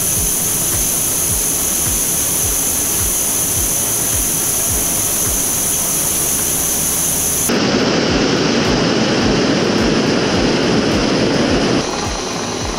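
MSR WhisperLite Universal camp stove burning canister gas at full flame under a kettle: a steady roaring hiss. About seven seconds in it changes abruptly to a louder, deeper roar.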